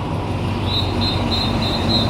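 Train rumbling steadily at a railway station. From about a second in, a rapid series of short high-pitched chirps repeats several times a second.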